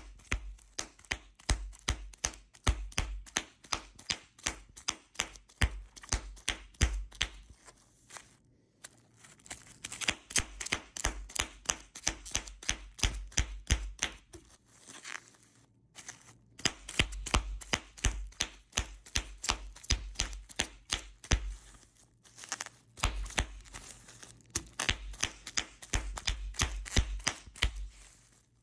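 Large-bubble plastic bubble wrap being popped by fingers: a rapid string of sharp pops, several a second, with a few short pauses.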